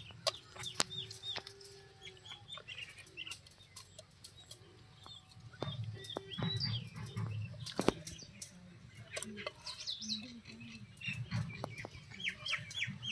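Small birds chirping in quick runs of short, falling chirps, with scattered soft clicks and wet squelches from a hand mixing whole fish in thick masala paste.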